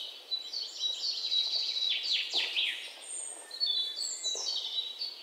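Birds chirping and twittering in a busy run of quick high calls, with a cluster of fast downward-sweeping notes about two seconds in, dying away near the end.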